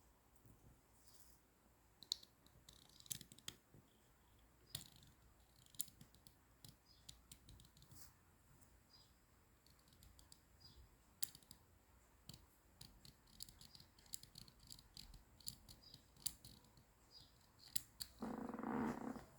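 Scattered light clicks and taps of small parts of a Black & Decker KR506-BR drill being handled and taken apart, with a brief buzz of about a second near the end.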